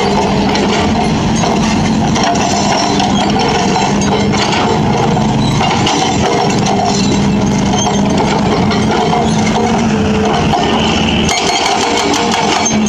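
Hitachi Zaxis 210F excavator's diesel engine running steadily under load while its hydraulic breaker hammers a concrete road slab, with clinks of breaking concrete.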